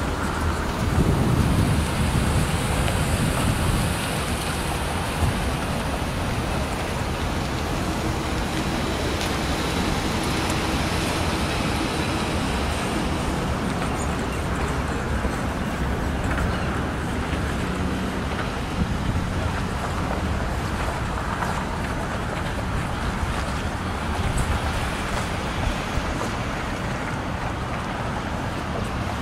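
A car driving for the first few seconds, then steady noise of wind on the microphone and road traffic.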